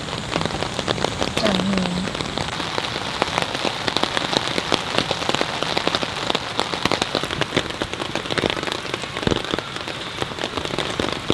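Heavy rain falling steadily, a dense stream of separate drops striking a surface close by.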